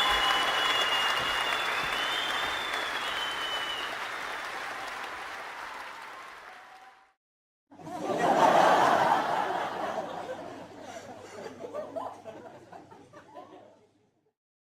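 Stock sound effect of a crowd applauding, with whistles in the first few seconds, the clapping fading out over about seven seconds. After a short silence comes a stock clip of audience laughter: a loud burst that dies away into choppy chuckles.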